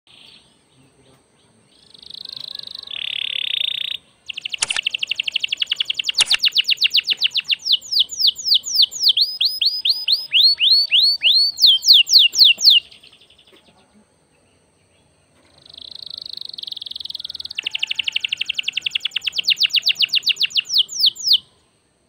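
Domestic canary singing in full song, in two long bouts with a short pause between them. Each bout opens with buzzy rolls, then runs into fast trills of repeated notes that slow into a string of quick downward-sweeping whistles.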